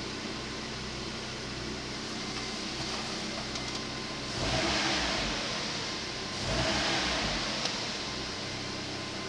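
Rover 25's 1.4 K-series four-cylinder petrol engine idling steadily, blipped up twice in short revs about four and a half and six and a half seconds in.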